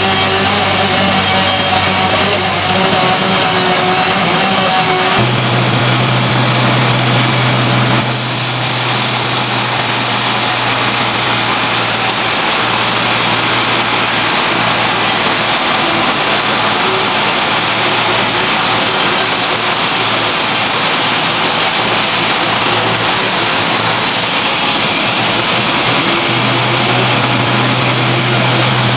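Sawmill machinery running loud and steady, an engine-driven saw working through a large trembesi (rain tree) log. The engine's hum changes pitch a few times, about five seconds, eight seconds and near the end.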